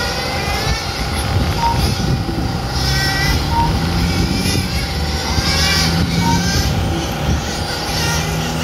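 Radio-controlled cars racing on an asphalt track, their motors whining in repeated rising and falling sweeps as they speed up and slow down through the corners. A few short high beeps sound over it.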